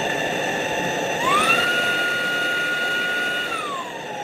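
Tineco Pure ONE S11 cordless stick vacuum running with a high motor whine. About a second in, the whine rises to a higher pitch as the motor steps up to a stronger suction setting, holds there, then falls back near the end.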